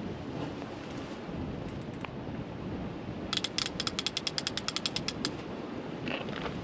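Fishing reel clicking rapidly as line is wound in to tighten up to a bite: about ten clicks a second for roughly two seconds, starting about halfway through, over steady wind noise.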